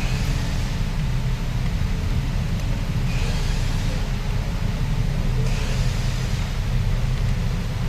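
Engine running steadily with a low hum, with a few brief hissing swells.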